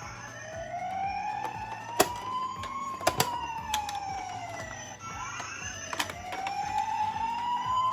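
A toy ambulance's siren sounding a slow wail that rises and falls in pitch, two wail cycles about five seconds apart. A few sharp clicks sound over it.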